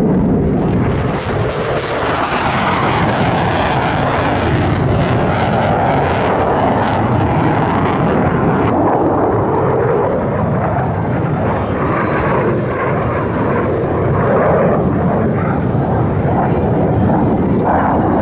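Lockheed Martin F-35A fighter jet flying overhead, its single Pratt & Whitney F135 afterburning turbofan giving loud, continuous jet noise. The noise is rough and crackling about two to five seconds in, and its pitch slowly shifts as the jet moves across the sky.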